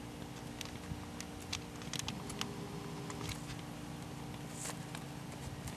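Scattered, irregular clicks and soft thuds of a horse's hooves and tack as it moves over grass, over a faint steady hum.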